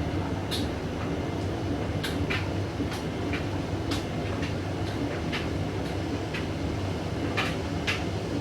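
Hoover Dynamic Vision washing machine trying to reach its final spin: a steady low rumble from the turning drum with irregular clicks and knocks. The owner says the machine is struggling to spin.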